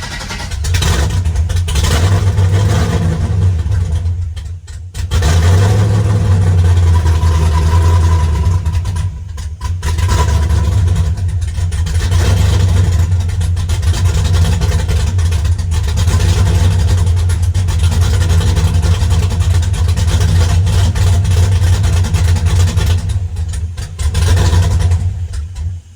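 LS-swapped S10's 5.3-litre V8 running with a few short dips in level, then shut off at the end. It is misfiring, a miss the owner says is worse than before and traces to a fault still to be found.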